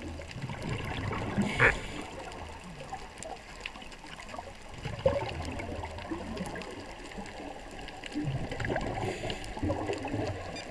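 Muffled underwater gurgling and bubbling, heard from inside a camera's underwater housing, with a louder bubbling burst about one and a half seconds in and a sharp pop about five seconds in.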